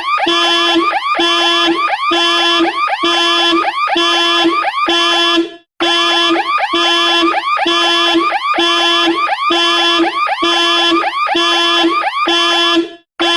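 Car alarm siren sounding: a pulse repeats about twice a second, each a steady buzzy tone with rising chirps over it. The alarm cuts out briefly twice, about six seconds in and again near the end.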